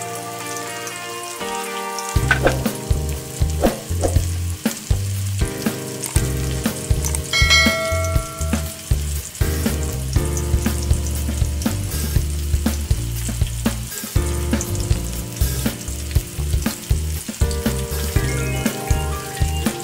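Flour-coated chicken pieces deep-frying in hot oil in a wok, sizzling steadily with scattered pops. Background music with a steady beat plays over it.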